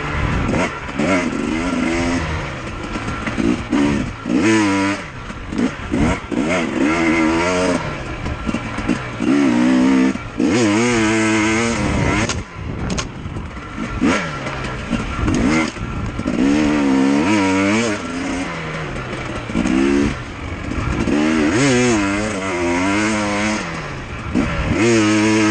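Dirt bike engine heard from on the bike, revving up in repeated rising pulls with brief throttle-offs between them as it is ridden along a trail.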